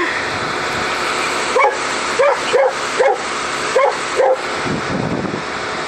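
A dog barking about six times in quick succession, short sharp barks in a loose run, over a steady background noise.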